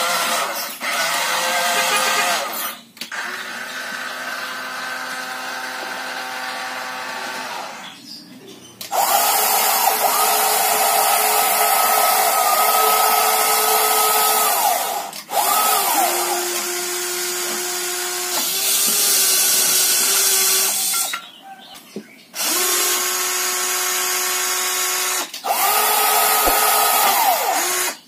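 Small electric motors of remote-control toy vehicles whirring in about six short runs. Each run starts with a rising whine and ends with a falling one, with brief pauses between runs.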